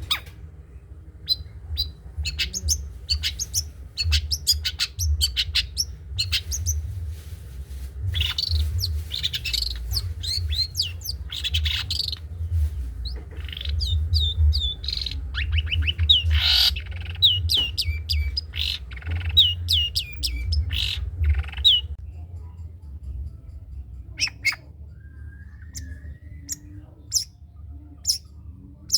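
Long-tailed shrike (cendet) singing a rapid 'trotol' song: a dense run of quick, harsh, downward-sweeping notes that thins out to scattered single calls after about twenty seconds. A steady low hum sits underneath.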